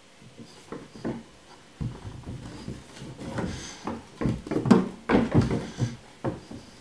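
Light thumps, taps and scrabbling of a young tabby cat's paws landing and skidding on a wooden floor as it jumps up and bats at a hand. Sparse at first, then a busy run of knocks from about two seconds in, loudest about three quarters of the way through.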